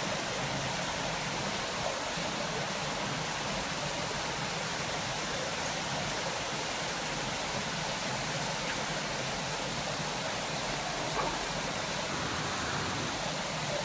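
Steady rush of running water: an even hiss that holds without change.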